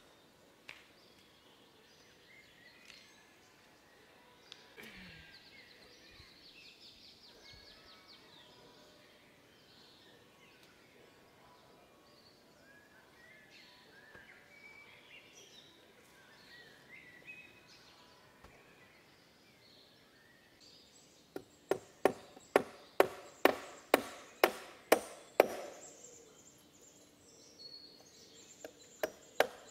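Faint outdoor background with scattered bird chirps and a brief trill. About twenty seconds in comes a run of sharp hatchet strikes on wood, about three a second for some four seconds, with a few more near the end.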